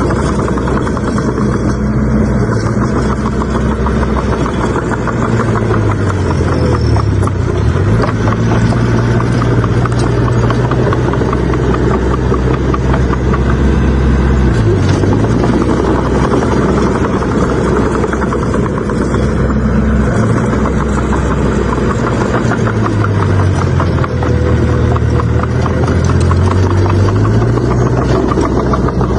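Bulldozer's heavy diesel engine running steadily while it pushes soil. The engine note dips and recovers a few times.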